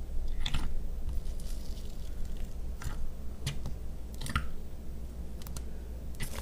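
Fingers pressing and squeezing thick white slime in a clear tub: soft wet squishing with a handful of short, sharp sticky pops as air pockets burst and the slime pulls away.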